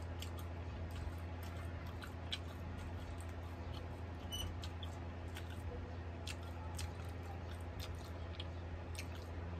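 Faint chewing of a mouthful of beef burger, with scattered small mouth clicks, over a steady low hum.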